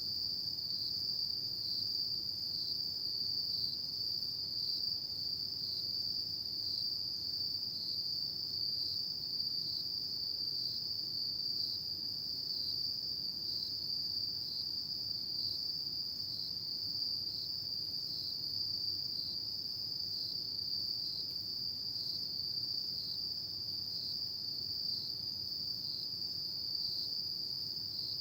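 Autumn insects calling in a continuous high-pitched trill, steady throughout with a slight regular pulse.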